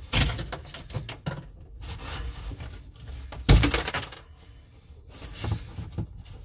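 Hand scraping and knocking around a broken galvanized drain pipe inside a hole in a plaster wall, rubbing against the rough plaster edges, with one louder knock about three and a half seconds in.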